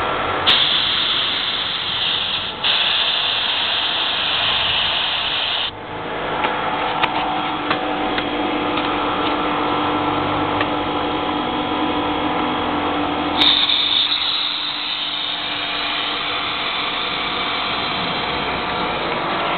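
SR-201 air compressor running steadily. Loud hissing of compressed air being let out through a valve starts about half a second in, breaks off briefly, and stops near six seconds in. A shorter hiss starts again at about thirteen seconds and fades.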